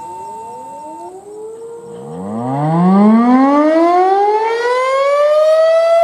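Federal Signal STH-10 outdoor warning siren winding up during a weekly test: starting about two seconds in, its pitch rises steadily from very low and levels off into a loud, steady wail near the end. Before that, a steady tone cuts off about a second in while a fainter siren rises to a steady pitch.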